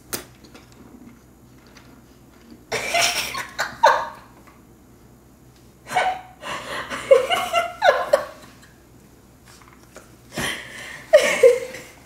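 Laughter in three bouts, broken up with sharp gasping breaths.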